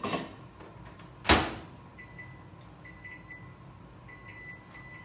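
Microwave oven door shut with a sharp clack a little over a second in, then a string of high keypad beeps as the cook time is entered.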